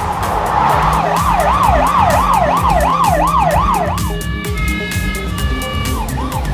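Police siren wailing in quick rising and falling sweeps, over music with a steady beat. About four seconds in the siren breaks off for a couple of seconds of held tones, then starts again near the end.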